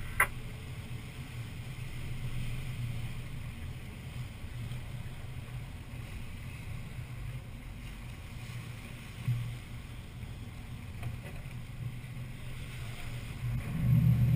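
Lifeguard rescue boat's engine running steadily as the boat moves through choppy surf, with water and wind noise on the microphone. There is a single thump about nine seconds in, and the engine grows louder near the end.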